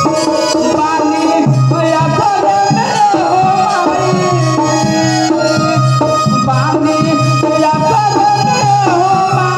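Live folk bhajan music: a dholak hand drum keeps a steady beat under an electronic keyboard melody, with a man singing into a microphone.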